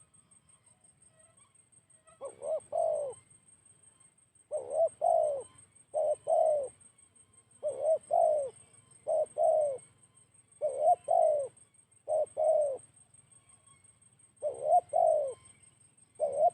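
Spotted dove (tekukur) cooing: short phrases of two or three deep coos, repeated about every second and a half, starting about two seconds in.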